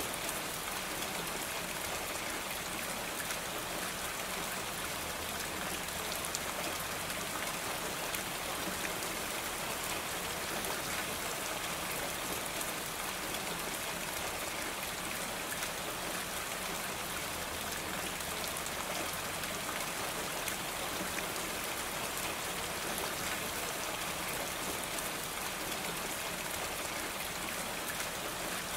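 Steady rain falling: an even hiss with a fine patter of individual drops, unchanging throughout.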